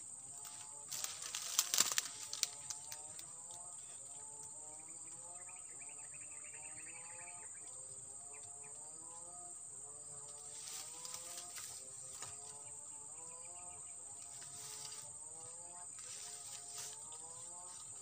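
Steady high-pitched drone of insects, over a running chorus of many short, low whistled calls. About one to three seconds in, crackling and rustling of dry cane leaves and stalks as the net pole is handled.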